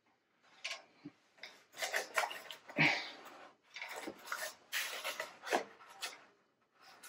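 A string of short, irregular scrapes and light knocks: the legs of a pink flamingo lawn statue being worked into its body, the parts rubbing against each other.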